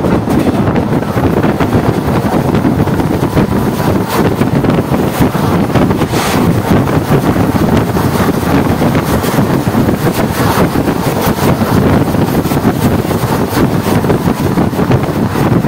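Wind buffeting the microphone at the open door of a passenger train at speed, over the steady rumble of the coach running on the rails.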